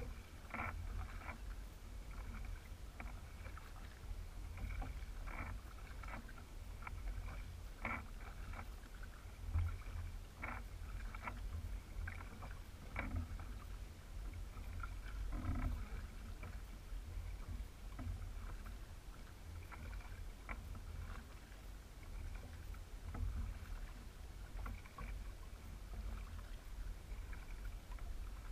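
Water sounds of a Hobie Revolution 16 kayak being paddled: irregular light drips and splashes every second or two over a steady low rumble.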